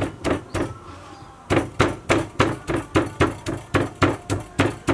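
Wooden pestle pounding red chili and garlic in a mortar: three strokes, a short pause, then steady pounding at about three to four strokes a second from about one and a half seconds in.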